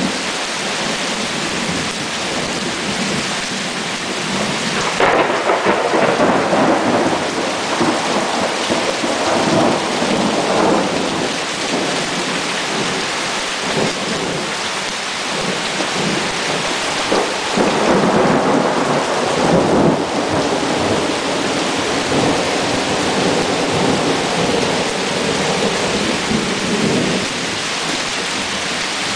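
Heavy rain falling steadily in a thunderstorm, with thunder rumbling loudest about five seconds in and again a little past the middle.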